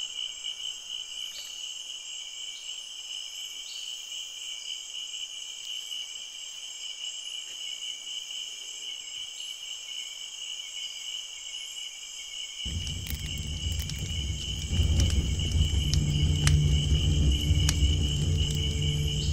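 Crickets chirping in a steady, continuous trill. About two-thirds of the way through, a campfire's low rumble with sharp crackles comes in, joined by a louder low steady drone.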